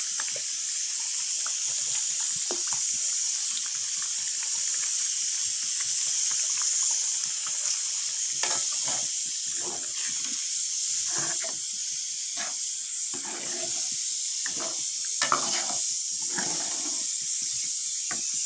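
Masala gravy sizzling steadily in a metal kadhai while a metal ladle stirs it, scraping and clinking against the pan, more often in the second half.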